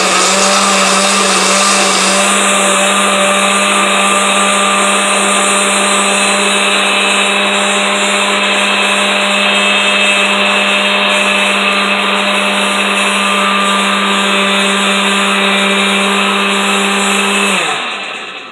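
Countertop blender motor running at a steady speed, puréeing scallion, onion, garlic and herbs with vinegar into a wet seasoning paste. It is switched off about a second before the end and the motor winds down.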